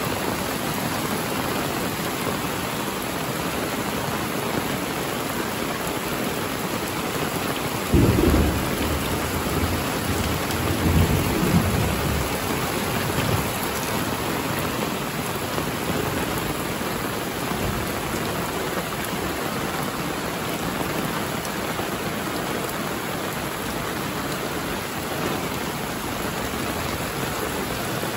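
Heavy rain falling steadily, with a sudden crack of thunder about eight seconds in that rumbles on for about five seconds.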